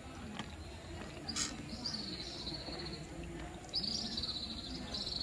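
High-pitched insect trill, heard twice: once for about a second starting near two seconds in, then again from just before four seconds on. A short sharp click comes just before the first trill.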